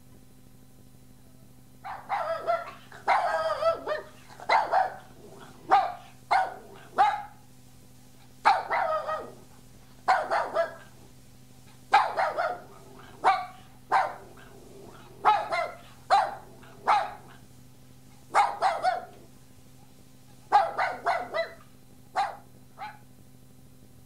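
Puppy barking in quick runs of several barks with short pauses between, for about twenty seconds, over a faint steady hum.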